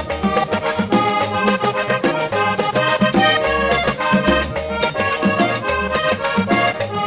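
Vallenato band playing an instrumental passage led by a button accordion, over bass guitar and hand percussion keeping a quick, steady beat.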